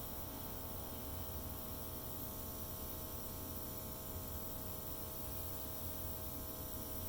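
Small airbrush compressor running with a steady hum and an even hiss of air.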